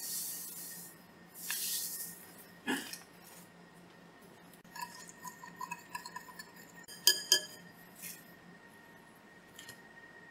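A metal utensil stirring a liquid marinade in a glass bowl, tapping and clinking against the glass. A soft hissing comes in two swells near the start, light ringing clinks follow, and two sharp, loud clinks come about seven seconds in.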